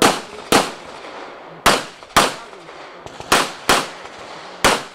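Handgun shots fired in quick pairs: three double-taps about half a second apart, a second or so between pairs, then a seventh shot near the end, each with a short echo off the range.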